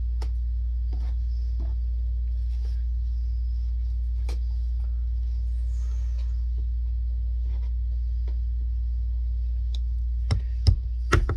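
Scissors snipping and clicking faintly at a cardboard shipping box, then a few louder knocks and scrapes of the cardboard box being handled about a second before the end, all over a steady low hum.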